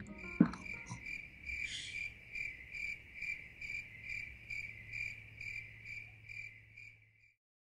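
Cricket chirping: one steady-pitched chirp repeated about two to three times a second, stopping abruptly near the end. A single thump sounds under a second in.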